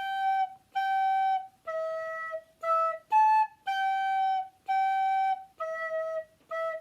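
Soprano recorder playing the notes G, G, E, E, A and then G, G, E, E, each note tongued separately with a short break between. The two G's are longer, the E, E, A quicker, and the last A comes just at the end.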